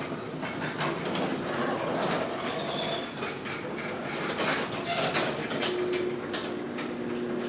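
Sectional garage door travelling along its steel tracks on newly replaced, freshly lubed rollers: a steady rolling noise with many short clicks. A faint steady hum joins in near the end.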